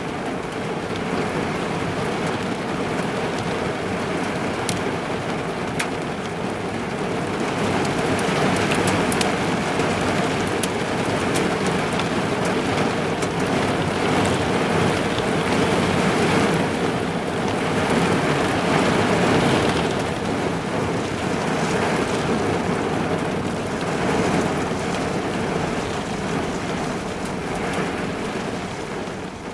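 Heavy rain pattering on a car's roof and windows, heard from inside the car: a dense, steady wash with sharp individual drop hits, growing a little heavier about a quarter of the way in.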